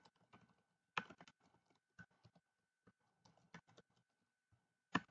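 Faint computer keyboard typing: scattered single keystrokes, with a sharper click about a second in and another near the end, over a faint steady high-pitched hum.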